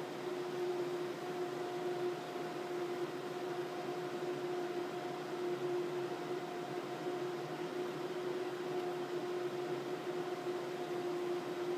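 IR6500 infrared BGA rework station running through a heating cycle: a steady fan-like hiss with a constant humming tone.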